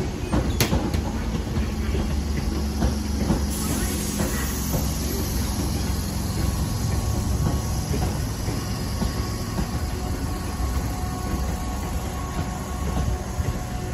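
Tobu Urban Park Line electric commuter train moving slowly along the track, giving a steady rolling noise of wheels and running gear.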